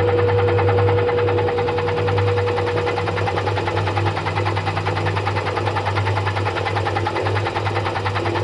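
Washing machine running, with a steady motor hum and a fast, even rattle.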